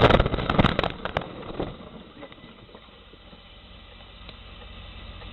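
Truck crash: the end of a loud impact at the start, then scattered cracks and clattering of breaking glass and debris for about a second and a half, dying away to a faint low rumble.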